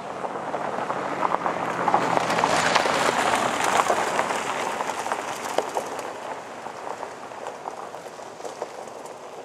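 Car tyres crunching over a dirt and gravel road as the car passes: a dense gravelly crackle that swells to a peak a few seconds in, then fades away.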